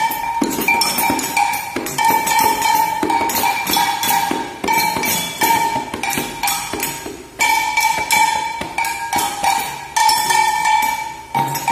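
A group of children playing hand percussion together: pandeiros and small hand drums struck in a fast, continuous rhythm, with a steady metallic ringing over the strikes. The playing thins out briefly a little past the middle, then picks up again.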